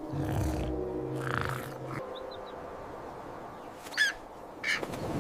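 Short bird calls: a few faint chirps, then one clearer squawk about four seconds in and a brief call near the end, over a low steady background hum.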